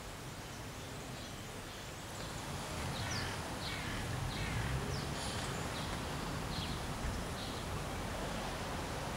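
Small birds chirping: a string of short, high calls, several falling quickly in pitch, over a steady background of outdoor noise.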